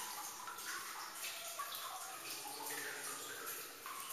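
Water trickling and dripping in a cave: a continuous run of small plinks and splashes at shifting pitches.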